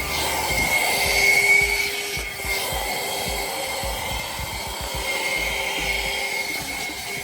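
Michelin MC33375 12-volt, 150-watt handheld car vacuum cleaner running, its small motor giving a steady high whine over a rush of air.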